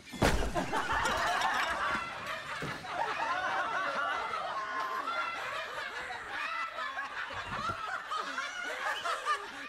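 A sudden loud crash as a giant prop hand slams into a man carrying a tray of soup bowls, knocking him down. Several men then laugh hard and shout over one another.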